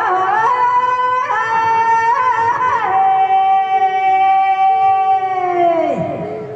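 A woman singing a Rajasthani Teja folk devotional song in a high voice. She sings short ornamented phrases, then about three seconds in holds one long note that bends down and fades away near the end.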